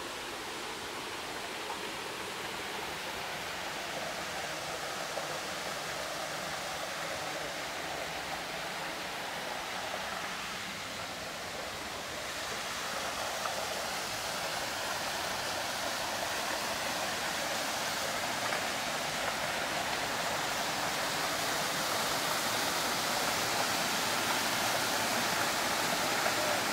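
Fast-flowing mountain water rushing over rocks, a steady, even rush that grows gradually louder from about halfway through.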